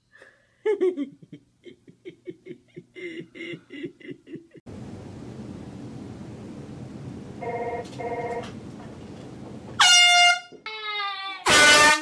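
Air horn blasted twice near the end, two loud blasts of about half a second each with a yelp between them. Before that, short bursts of a person's voice, then steady room noise with two brief tones.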